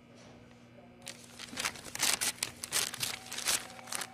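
A brown paper bag and a plastic wrapper crinkling and rustling as hands pull the wrapper open inside the bag, in quick irregular crackles starting about a second in.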